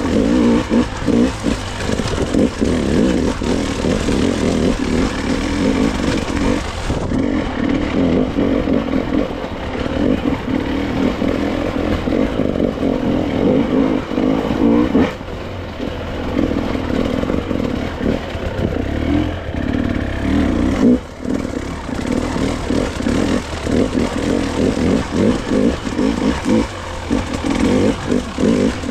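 Dirt bike engine running under a rider's throttle on a rough trail, its revs rising and falling constantly, with the bike clattering over the ground.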